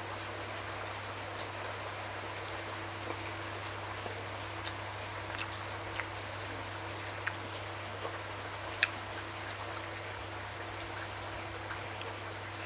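Close-miked chewing of a nori-wrapped sushi roll: soft, wet mouth clicks and smacks every second or so over a steady hiss and low hum, one sharper click about nine seconds in.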